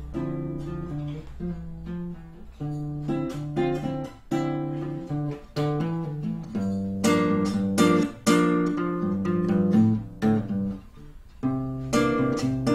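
Solo acoustic guitar strumming and picking chords, with no singing; it grows louder and more forcefully strummed about seven seconds in.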